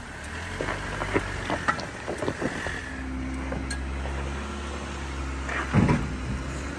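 Off-road vehicle's engine running at low speed, a steady low drone, with scattered clicks and knocks and a louder thump near the end.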